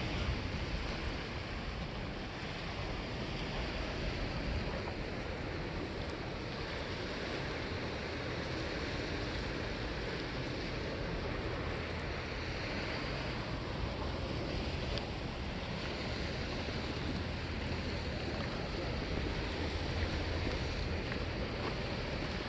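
Sea waves washing steadily against a granite breakwater, with wind noise on the microphone.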